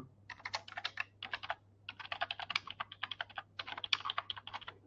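Fast typing on a computer keyboard: quick keystrokes in runs broken by short pauses, quieter than the surrounding speech.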